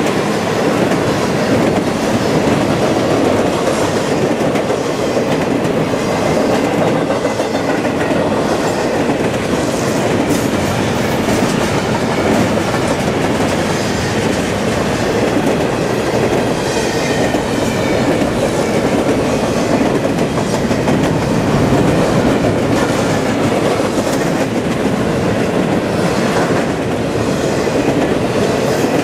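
Double-stack intermodal freight train passing at speed: steady rumble and clatter of the well cars' wheels on the rails, with faint high wheel squeals around the middle and again near the end.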